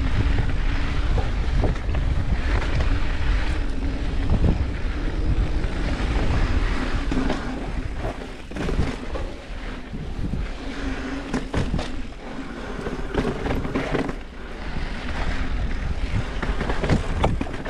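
Mountain bike riding down a rough dirt trail: wind buffeting the microphone over a steady tyre rumble, with frequent knocks and rattles as the bike goes over bumps and rocks.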